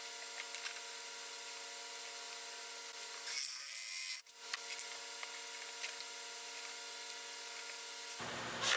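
Reciprocating saw cutting through 3/8-inch steel threaded rod held in a wooden jig: one short, faint burst a little over three seconds in, over a steady low hum, with a few light clicks of handling.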